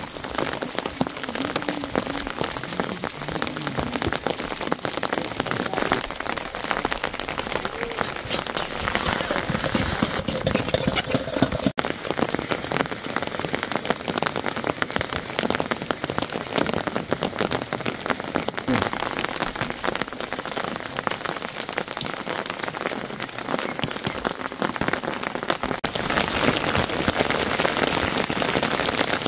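Steady rain pattering, a dense crackle of drops striking the ground and nearby surfaces, growing a little heavier near the end.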